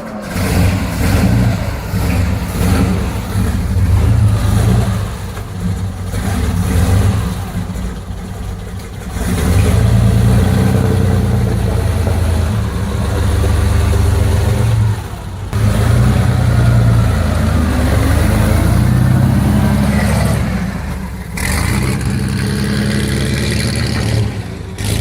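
Locomobile Model 48's big six-cylinder engine running and being revved, heard in several clips cut together, with abrupt changes about 9, 15 and 21 seconds in.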